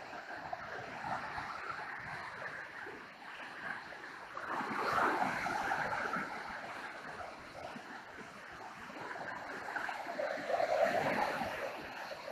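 Niagara River gorge rapids rushing: a steady wash of white water, swelling louder twice, about halfway through and again near the end.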